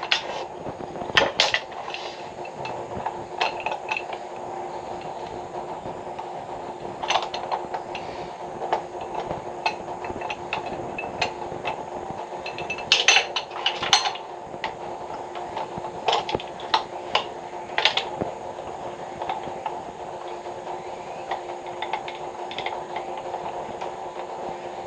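Scattered metallic clinks and knocks of hand tools and pipe fittings being handled during a water pipe repair, heard over a steady hum.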